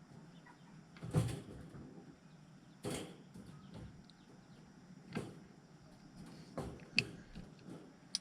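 Wire mesh panels of a rabbit cage being handled and clipped together: about six sharp metallic clicks and rattles at irregular intervals, the loudest a little after a second in.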